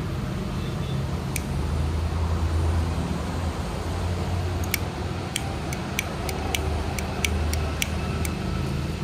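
Disposable lighter clicked over and over to light oil-soaked cardboard in a burner box: one click about a second and a half in, then about a dozen sharp clicks, two or three a second, from about halfway through. A steady low hum sits underneath.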